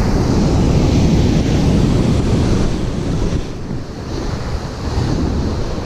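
Sea waves surging and washing, with wind buffeting the microphone; the rush eases briefly a little past halfway through.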